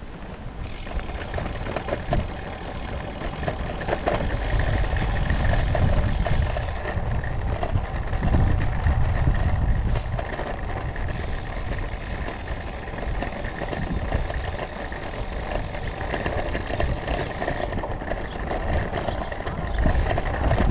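Road bike rolling over a cobbled street: the tyres drum on the stones and the bike rattles continuously, with a low rumble underneath.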